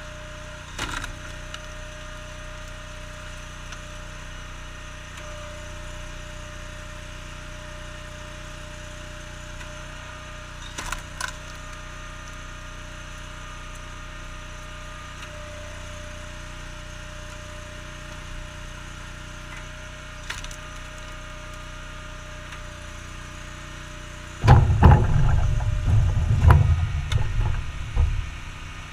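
Honda GX690 V-twin engine running steadily on a homemade hydraulic log splitter, with a few short sharp cracks of logs splitting about a second in, around eleven seconds and around twenty seconds. Near the end comes a loud run of low thumps and rumble lasting a few seconds.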